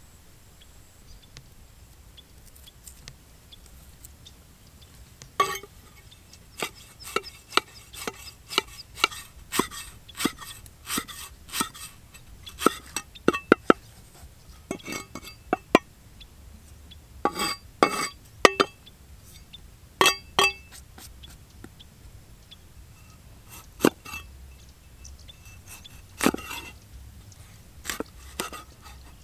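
Steel cleaver chopping lemongrass on a wooden chopping block: sharp, irregular knocks with a slight metallic ring, starting about five seconds in and coming in quick runs with a short pause past the middle.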